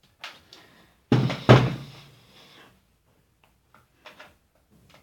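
Two loud thumps close together about a second in, dying away quickly, with a few faint knocks of handling around them.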